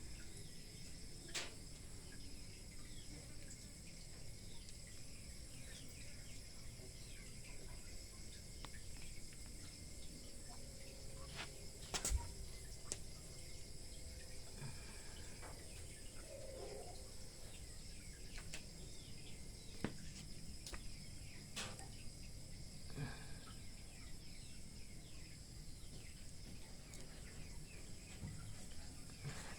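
Quiet outdoor ambience with a steady high insect drone, broken by a few sharp clicks or knocks, the loudest about twelve seconds in.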